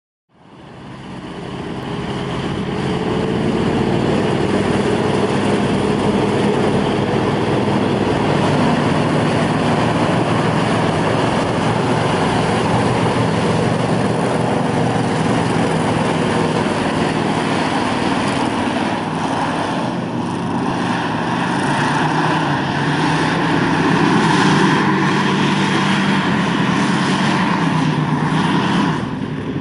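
Hovercraft engine running and driving its ducted six-blade propeller in a steady, loud drone, with the engine pitch drifting slightly up and down. The sound fades in over the first few seconds.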